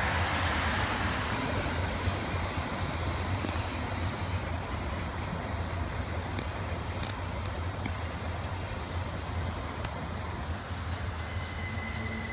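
Norfolk Southern freight train rolling past, a steady rumble of wheels and cars.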